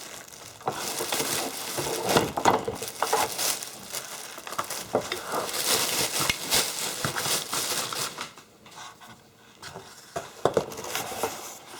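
Plastic wrapping being pulled off a new bench vise and crumpled, a run of crinkling and crackling. It eases off for a couple of seconds near the end, followed by a few light knocks.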